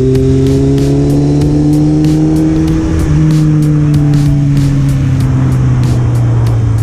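Kawasaki KZ1000 MK2's air-cooled inline-four through a KERKER exhaust, running under load on the move; the revs climb slowly, shift about three seconds in, then ease off.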